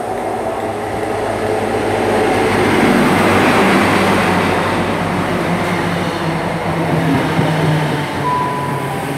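InterCity 125 High Speed Train pulling into a station platform, its Class 43 power car's diesel engine running and growing louder as it draws alongside, loudest about three to four seconds in, then easing as it slows. A brief high steady tone sounds near the end.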